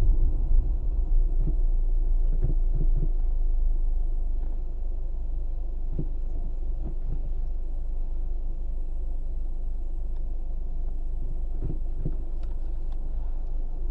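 Low in-cabin car rumble picked up by the dashcam's microphone in a 2002–2006 Acura RSX: road noise easing off over the first four seconds or so as the car slows to a stop, then a steadier, quieter engine hum at idle, with a few faint knocks.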